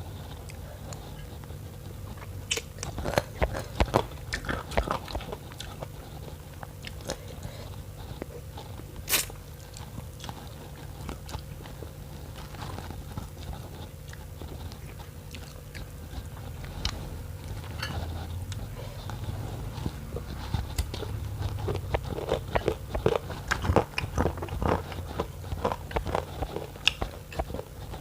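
A person eating noodle soup with meaty bones close to the microphone: chewing and biting, with bursts of sharp wet clicks and crunches a few seconds in and again near the end, over a steady low hum.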